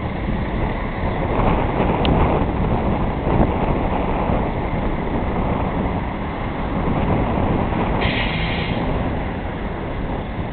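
DAF truck with a Schäfer bitumen spraying installation running steadily, pumping emulsion through a hose to a hand lance spraying it onto the road. A brief higher hiss comes about eight seconds in.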